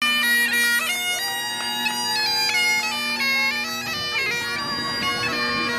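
Great Highland bagpipe playing a tune: the drones hold a steady low note under the chanter's stepping melody.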